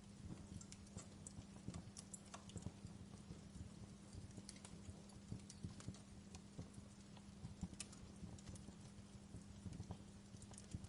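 Wood fire crackling in a fireplace: irregular small snaps and pops over a faint, steady low hum.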